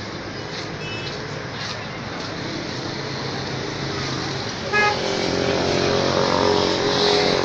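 Street traffic noise, with a short car horn toot just before five seconds in, after which a vehicle running close by grows louder.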